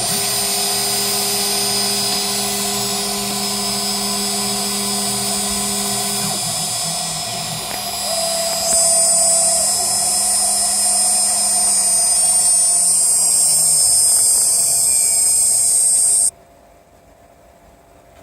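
CNC router spindle running with a V-bit, cutting a PCB: a steady high-pitched whine with hiss that gets louder about halfway through, then cuts off suddenly near the end, leaving a faint hum.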